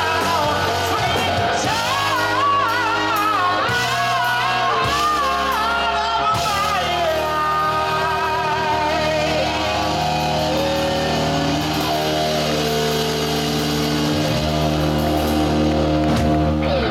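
Live rock band playing: a lead vocalist singing over electric guitars, bass guitar and drums. The second half settles into long held notes, and the band stops at the very end.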